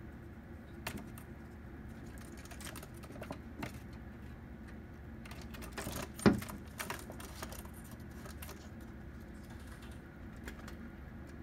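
Pigeons pecking seeds off a windowsill: irregular sharp taps, with one much louder thump about six seconds in, over a low steady hum.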